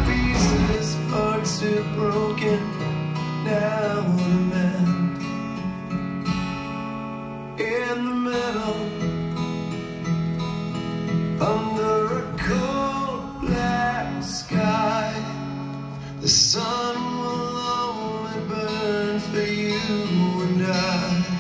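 Music with a strummed acoustic guitar and a singing voice.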